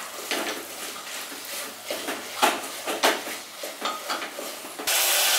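Wooden spatula scraping and knocking against the inside of an aluminium pressure cooker while stirring sautéed vegetables, in irregular strokes. Near the end a loud, steady sizzle starts abruptly.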